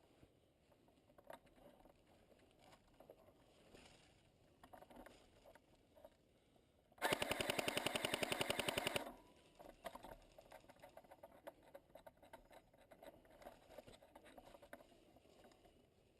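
Airsoft rifle firing one rapid full-auto burst of about two seconds, roughly seven seconds in. Faint rustling and small clicks of movement come before and after.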